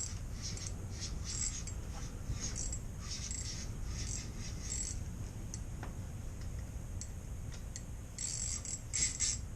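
Ice-fishing reel's drag giving line in short, irregular high-pitched buzzes as a hooked walleye pulls against it.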